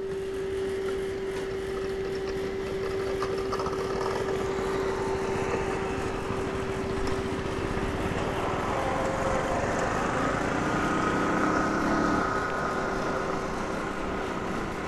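Royal Enfield Classic 350 motorcycle on the move: its single-cylinder engine is running under steady wind and road noise. A steady hum sits underneath, and an engine note rises between about eight and twelve seconds in.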